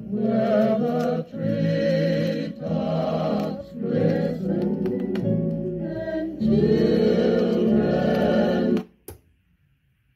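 A vinyl single playing on a JVC QL-F320 turntable: vocal music that cuts off abruptly near the end, followed by a single click and quiet.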